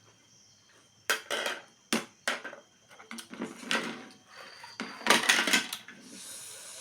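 Close-up eating noises: a series of sharp crunches and clicks, with a dense burst about five seconds in.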